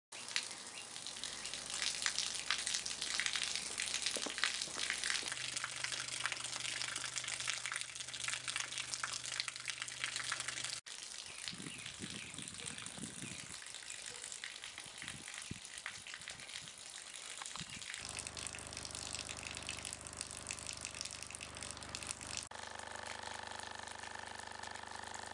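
A stream of water pouring from a hose and splashing, a steady hiss. A low steady hum comes in about five seconds in and again from about eighteen seconds, and the sound changes abruptly around eleven and twenty-two seconds in.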